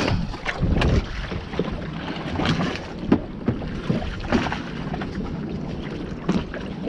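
Wind buffeting the microphone and choppy sea water slapping against the hulls of two boats lying side by side, with several short sharp splashes or knocks.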